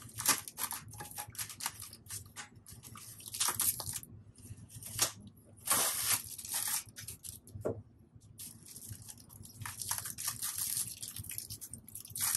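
Irregular scraping, creaking and crunching of polystyrene foam packing as metal parts are worked loose from their recesses in the foam.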